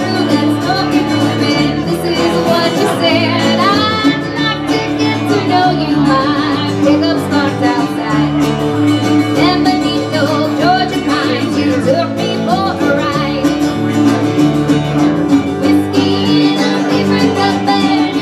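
Country band playing live: a woman sings the lead over strummed acoustic guitar, a resonator guitar and an electric bass line that moves about once a second.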